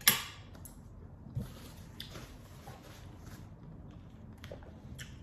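Chewing and mouth noises of someone eating food close to the microphone, opening with a sharp click and ending with a few small clicks.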